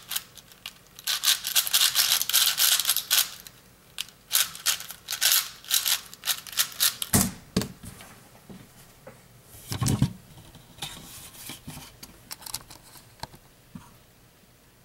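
ShenShou 4x4 speedcube being turned fast: rapid bursts of plastic clicking and clacking as layers snap round. Near the end of the solve it goes quiet except for a dull thump about seven seconds in and another about ten seconds in, then a few faint ticks.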